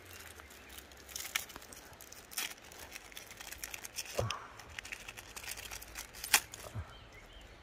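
Small packet of fishing hooks being torn open and handled: a scatter of sharp crinkles and crackles, the loudest about six seconds in.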